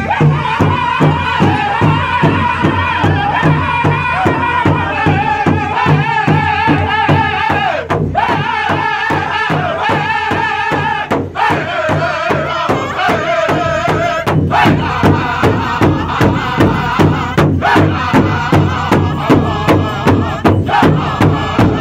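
Powwow drum group: several men sing a chant in unison while striking one large hide-covered drum together with padded drumsticks, a steady beat of about two strokes a second under the wavering voices.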